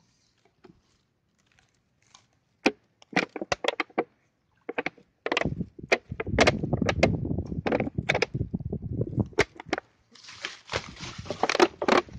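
Rustling and crackling of dry reeds, twigs and plastic litter being pulled out of the undergrowth by hand: a few sharp snaps about three seconds in, a dense crinkling stretch in the middle, and a hissing rustle near the end.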